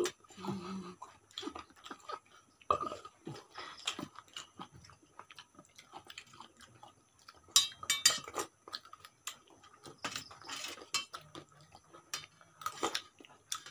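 Eating sounds: chewing and lip-smacking, with irregular clinks of steel spoons against a steel plate of chicken curry.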